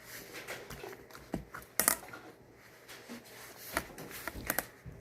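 Slime being worked by hand, squishing softly, with several sharp clicking pops as it is pressed and tapped.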